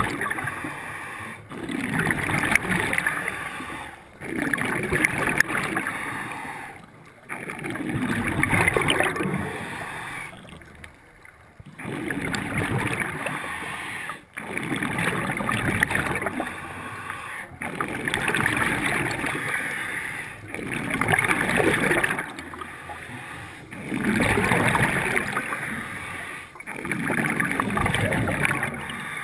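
Scuba diver breathing through a regulator underwater: a hiss on each inhale and a bubbling rush of exhaled air, repeating about every three seconds, with a longer pause about ten seconds in.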